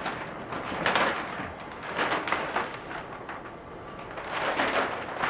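Large sheet of clear plastic film rustling and crinkling as it is lifted and pulled away, swelling louder several times as it is moved.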